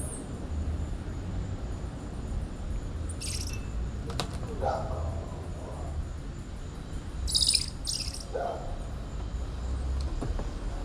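Rainforest animal calls: a few short, high chirping calls, the loudest about three and seven seconds in, and some lower brief calls, over a steady high insect tone and a low rumble.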